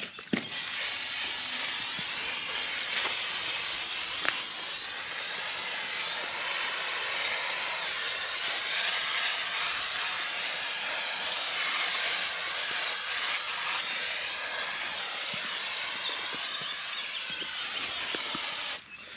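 A continuous pressurised spray hiss that starts just after the beginning and stops shortly before the end, with a couple of faint knocks about three and four seconds in. It is plausibly a protective coating being sprayed on equipment to store it until next year.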